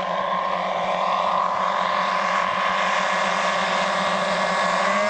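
Engines of a giant radio-controlled B-29 model bomber running in a steady, droning whine, growing slightly louder as the model comes in low.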